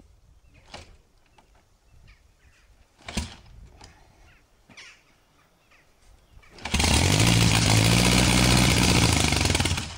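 Kick-starting a 1920s Henderson inline four-cylinder motorcycle: a few mechanical clacks from the kick-start strokes, the sharpest about three seconds in, then about two-thirds of the way through the engine catches and runs loud for about three seconds, its pitch rising a little and falling back, before it cuts off shortly before the end.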